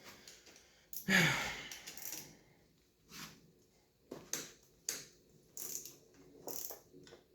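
Ratcheting wrench clicking in short bursts, about one stroke a second, as bolts on a 2006 KTM 125 SX two-stroke top end are worked loose. A brief loud rushing noise comes about a second in.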